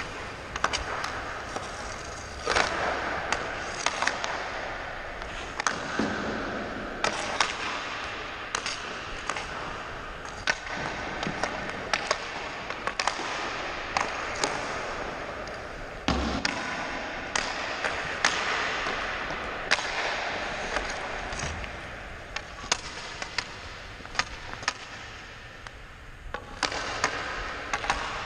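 Ice hockey skate blades scraping and carving on the ice in repeated swishing strides, with many sharp clacks of stick and pucks throughout.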